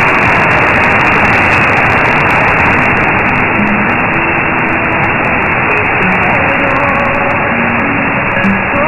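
Shortwave AM reception of LRA 36 Radio Nacional Arcángel San Gabriel on 15476 kHz: steady band hiss with faint snatches of music barely showing through. The signal is weak, close to the noise floor.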